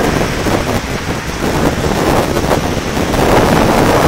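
Wind buffeting a phone's microphone: a loud rumbling noise that rises and falls in gusts.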